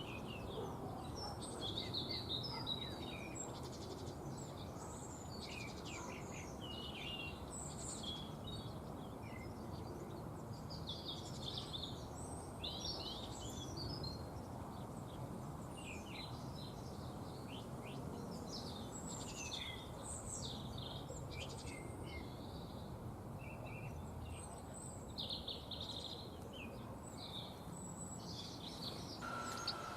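Small garden birds chirping and twittering, many short calls throughout, over a steady low background hum. Near the end a siren starts up.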